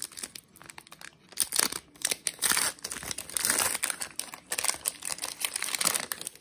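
Foil wrapper of a Donruss football card pack crinkling and tearing as it is pulled open by hand, in irregular crackles that grow busier about a second and a half in.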